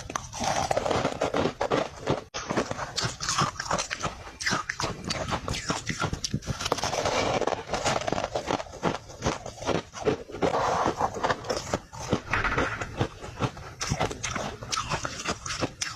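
Freezer frost being bitten and chewed close to the microphone: dense, rapid crunching and crackling.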